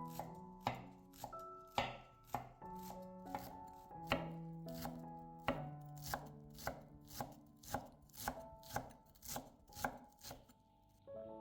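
Knife chopping food on a cutting board: irregular strokes at first, then quick even strokes at about three a second in the second half. Soft background music plays underneath.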